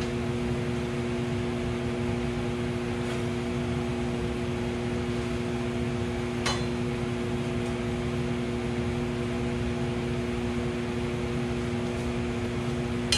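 Steady machine hum with a low even tone, like a running fan, filling the shop, with a faint light click about six and a half seconds in.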